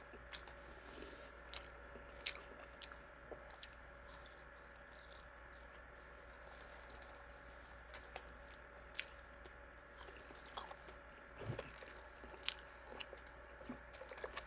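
Faint chewing of KFC french fries, with scattered small mouth clicks that get busier in the last few seconds, over a faint steady hum.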